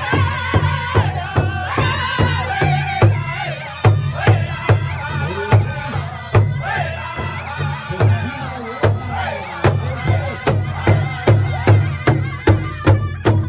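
A Northern-style powwow drum group sings high, falling song lines in unison while striking one large bass drum together in a steady beat of about three strokes a second. The singing thins in the last few seconds, and the drumbeat comes through louder.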